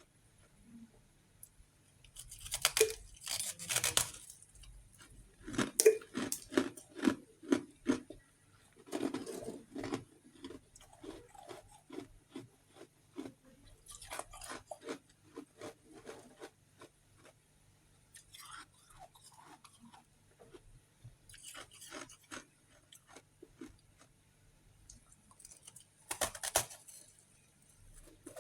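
Close-up crunching and chewing of refrozen freezer frost chunks. It comes in several bursts of crisp cracking bites with quieter chewing between them, the loudest crunches early on.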